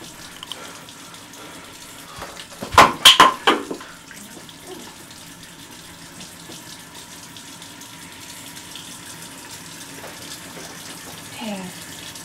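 Bathroom sink tap running steadily into the basin. About three seconds in there is a short burst of loud splashing as hands work the water under the stream.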